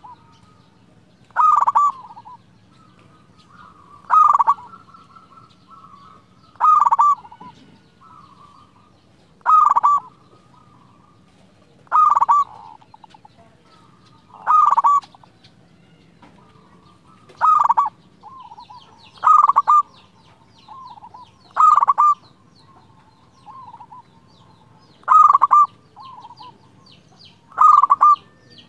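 Local zebra dove (perkutut) singing: eleven loud, short cooing phrases, each repeated about every two and a half seconds, with softer coos in between.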